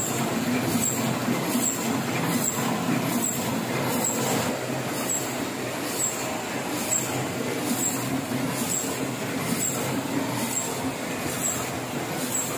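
Heidelberg offset printing press running: a steady mechanical clatter with a sharp tick repeating about every 0.8 seconds.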